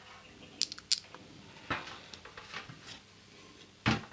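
A few small sharp clicks and knocks from hand-handling at the workbench, with one louder knock near the end.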